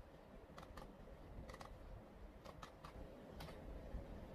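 Faint keystrokes on a computer keyboard as a number is typed: about eight separate clicks, several in quick pairs.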